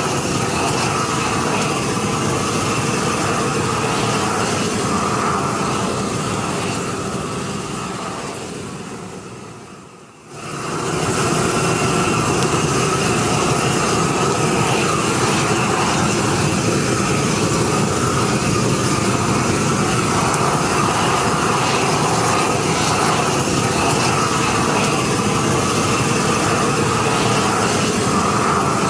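Propane weed torch burning with a steady rushing roar as its flame is played over the bases of cut barberry stems. The roar fades away over a few seconds around eight to ten seconds in, then comes straight back and holds steady.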